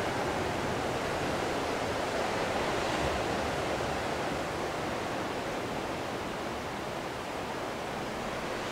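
Steady rushing of ocean surf coming in through the open walls, an even wash of noise with no distinct waves breaking.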